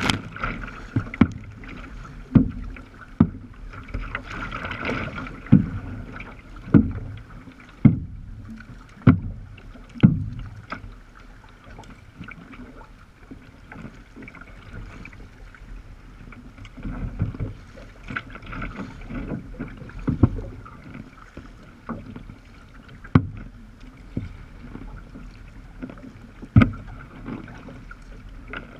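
Sea kayak moving through choppy water: sharp splashes and knocks of water against the hull, about once a second for the first ten seconds and then less often, over a steady wash of water and wind.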